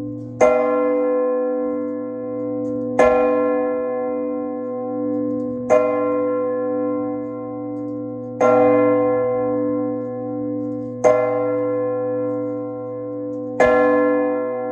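Large bronze church bell tolled by a rope pulled on its clapper while the bell hangs still. Six strokes about 2.7 seconds apart, each a sharp clang that rings on with a long, low hum into the next.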